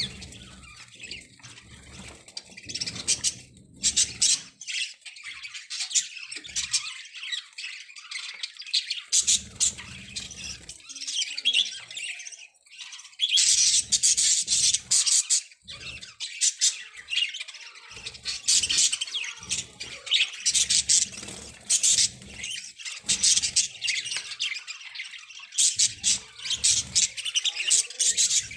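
A group of budgerigars chattering without pause, with frequent sharp, loud squawks standing out from the twittering.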